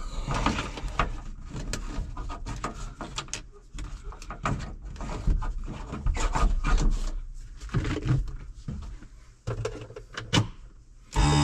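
Irregular clicks, knocks and rustling of a tractor seat's wiring harness being handled and connected at the metal seat base. Guitar music starts near the end.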